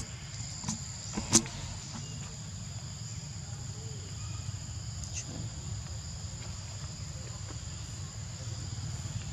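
Steady high-pitched insect chorus, two shrill tones held without a break, over a low rumble. A sharp click about a second and a half in, the loudest sound, with a couple of fainter clicks around it.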